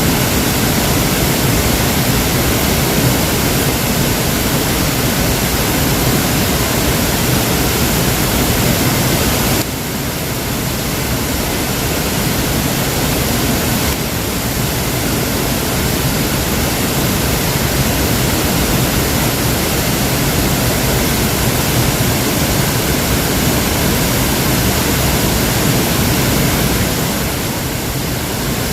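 Waterfall: a steady, loud rush of falling water. The level drops slightly and suddenly about ten seconds in, and dips again near the end.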